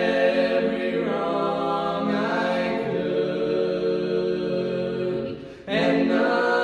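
A vocal trio of two men and a woman singing a hymn a cappella in close harmony, holding long chords. Near the end they break off briefly for a breath and come back in on a new chord.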